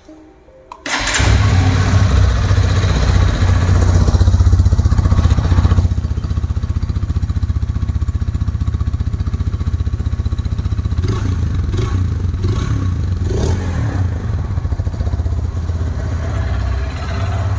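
Hero Xtreme 160R 4V motorcycle's single-cylinder, four-valve, air-cooled engine starting up about a second in. It runs louder for the first few seconds, then settles to a steady, slightly quieter idle.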